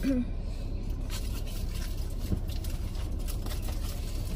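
Steady low rumble inside a car cabin, with a brief hummed voice sound at the start and a few faint taps.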